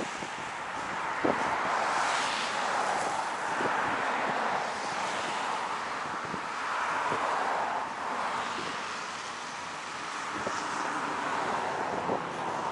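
Wind rushing over the microphone in swelling and fading gusts, with a couple of brief knocks.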